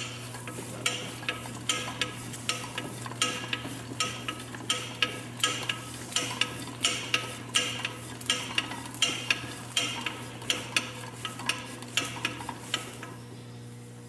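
Monarch lathe carriage being cranked along its ways by hand, with the taper attachment moving the cross slide: a steady run of scraping clicks, about two or three a second, that stops about a second before the end. A steady low hum runs underneath.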